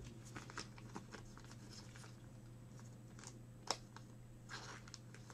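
Faint light clicks and rustling of trading cards being handled, with one sharper click about three and a half seconds in, over a steady low electrical hum.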